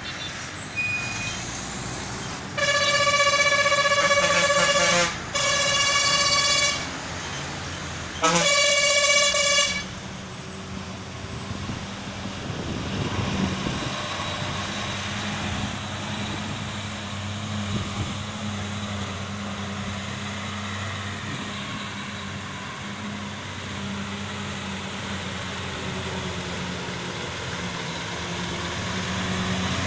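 Three loud horn blasts from a lorry on the hairpin bend, the first about two and a half seconds long and the next two shorter, within the first ten seconds. After that an Ashok Leyland goods lorry's diesel engine runs steadily as it turns the bend, growing a little louder near the end.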